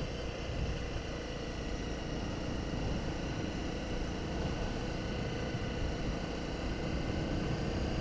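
Honda CRF250 Rally's single-cylinder engine running steadily at cruising speed, mixed with wind noise on the microphone.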